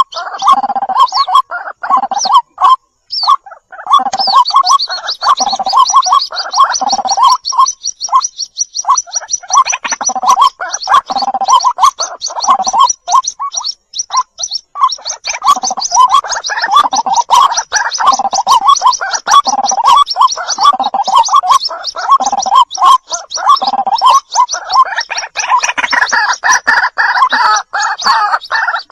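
White-breasted waterhen calling: a dense run of rapid, gurgling notes. From about four seconds in, a fast, high chattering joins in.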